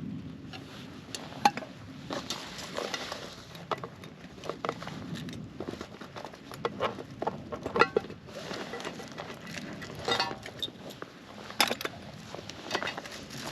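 Metal tent gear, pole sections and pegs, clinking and clattering in irregular knocks, some with a short metallic ring, as a tent is pitched.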